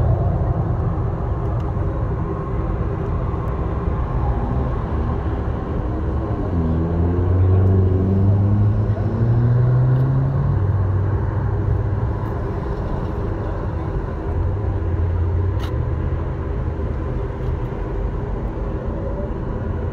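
Low, steady rumble of car engines running, with deeper humming tones that step up and down in pitch between about six and twelve seconds in.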